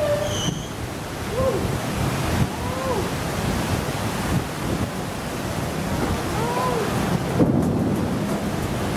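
Steady rushing rain and wind, with wind buffeting the microphone. A few short whistle-like tones rise and fall three times.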